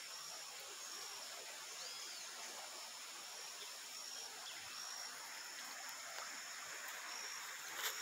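Faint outdoor riverside ambience: a steady hiss with a short high call repeating about once a second and a single arched chirp about two seconds in, then a light click near the end.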